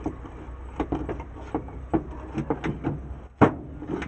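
Metal parts of a car starter motor clicking and knocking irregularly as they are handled and fitted together, with one sharper knock about three and a half seconds in.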